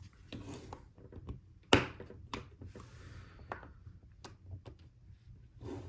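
Plastic Lego pieces being handled and clicked together: a scatter of small clicks and taps, with one sharper click a little under two seconds in and a brief soft rubbing of parts.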